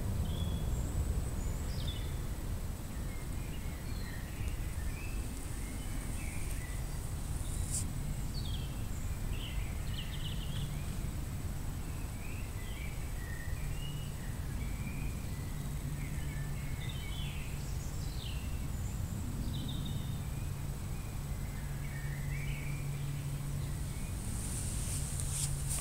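Outdoor ambience: a steady low hum under background noise, with many short high chirps of small birds scattered throughout and a brief crackle near the end.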